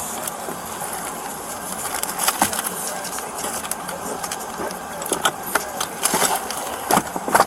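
Rustling with scattered clicks and knocks over a steady hiss, typical of handling noise on a body-worn camera; a sharp knock comes near the end.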